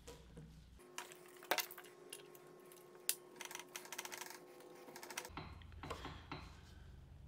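Locking pliers clicking and clinking against a metal vise part as they are handled and clamped onto it: a run of sharp clicks and light knocks, two louder ones about a second and a half and three seconds in, with a few softer knocks near the end.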